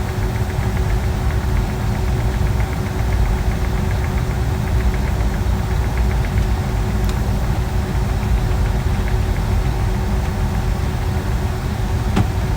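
Boeing 757-200 jet engines running steadily, heard inside the cabin as a loud low rumble with a steady hum. A run of faint quick ticks sounds in the first half, and a single sharp click comes near the end.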